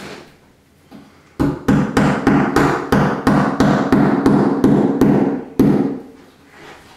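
A hammer tapping a wall anchor into a drilled hole: a quick run of about fifteen sharp taps, roughly four a second, starting about a second and a half in. The last tap comes after a short pause. The anchor is a tight fit in its hole.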